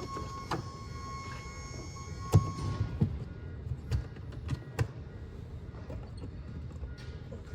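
A series of sharp knocks and clicks as the hood of a Ford E-450 ambulance is unlatched and opened, the loudest knock a little over two seconds in. A steady high tone stops shortly after that knock.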